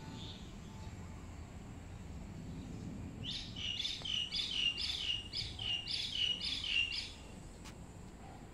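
A bird singing a quick run of about nine repeated notes, each falling in pitch, for about four seconds starting about three seconds in, over a steady low rumble.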